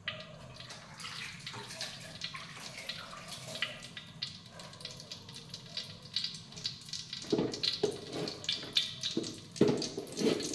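Cooking oil heating in an aluminium wok, crackling and spitting in many small pops. A few louder knocks come near the end.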